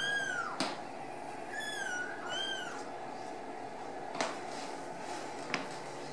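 Ragdoll kittens meowing: three short, high-pitched meows in the first three seconds, each rising then falling in pitch. Three sharp clicks follow later.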